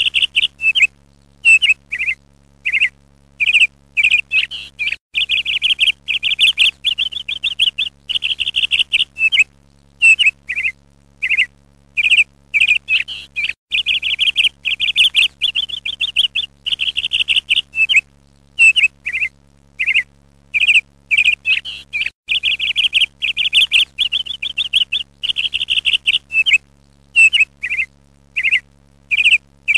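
Songbird chirping in quick repeated runs, broken by short pauses.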